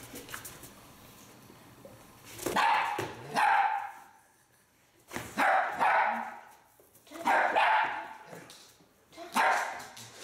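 A dog barking in play, four short bouts of barks spaced about two seconds apart, while two dogs romp together.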